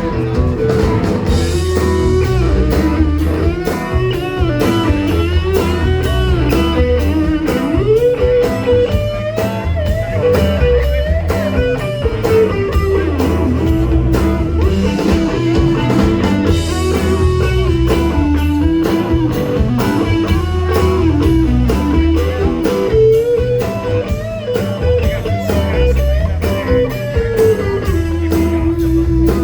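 Blues-rock music: a guitar plays a lead line with bending, gliding notes over a steady drum beat and bass.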